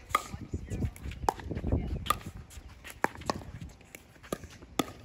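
Pickleball paddles striking a plastic pickleball in a rally, about six sharp hollow pops at irregular intervals of roughly a second.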